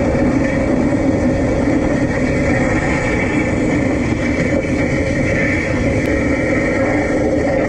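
Steady running noise of a moving electric tram, picked up from a camera on its trolley pole above the roof: a continuous rumble with a steady hum over it.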